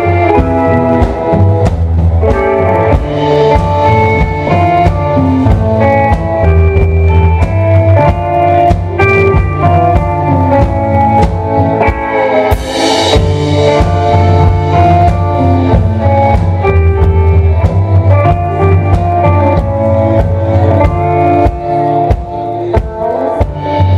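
Live rock band playing loudly: two electric guitars over a drum kit, with a bright crash about halfway through.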